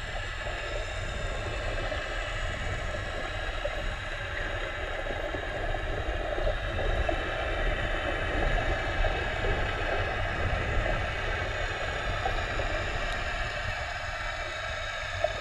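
Underwater sound recorded through a GoPro Hero3's waterproof housing: a steady muffled rumble with a dense crackle of water, and a faint steady high hum above it.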